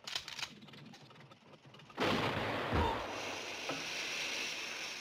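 A few faint clicks, then about two seconds in a sudden loud shotgun blast that runs straight into a steady hiss of water and steam spraying from the car's punctured radiator.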